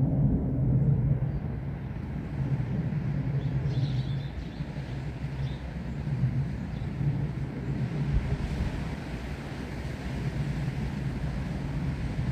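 Gusty wind with a low, uneven rumble, and a fainter hiss of rustling leaves that grows stronger about two-thirds of the way through.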